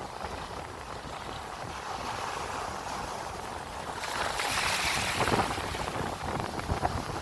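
Ocean surf washing in, with wind rumbling on the microphone. A wave surges and hisses more loudly about four to five seconds in.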